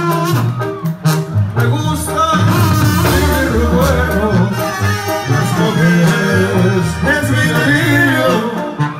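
Live Mexican banda music: sousaphones playing a bouncing bass line under trumpets, trombones and clarinets, with a man singing lead into a microphone from about two seconds in.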